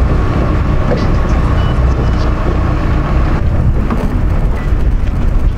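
Steady low rumble of a boat's engine with wind buffeting the microphone; the sound changes about three and a half seconds in.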